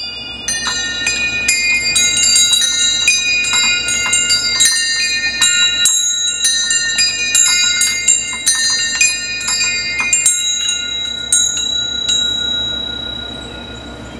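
Zimbelstern doorbell: a rotating star striking a set of small bells of many different pitches in quick, irregular succession, several strikes a second, each left ringing. The striking stops after about eleven seconds and the last tones ring on and die away.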